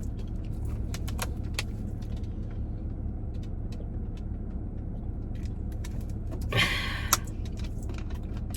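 Eating sounds: small wet mouth clicks of chewing over a steady low hum, with a brief rustle about six and a half seconds in and a sharp click just after.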